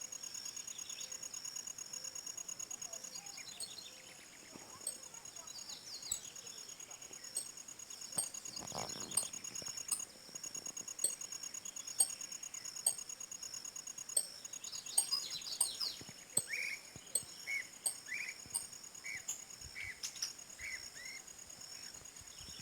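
Wild birds chirping and calling over a steady, high-pitched insect chorus, with a run of short repeated call notes in the second half.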